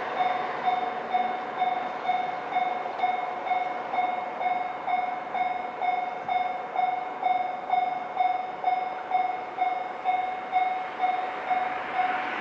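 Japanese railway level crossing's electronic warning bell ringing steadily, an even ding about two and a half times a second, one tone with fainter overtones.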